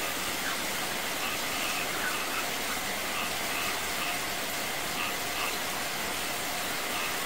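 Steady heavy rain falling onto concrete and stone, mixed with water gushing from a small cascade over rocks and a thin stream pouring down from above. Faint short high notes recur about once a second over the rain.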